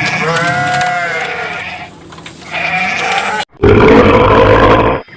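Sheep bleating, several wavering calls. About three and a half seconds in there is an abrupt cut to a louder, rough, roar-like animal call lasting about a second and a half.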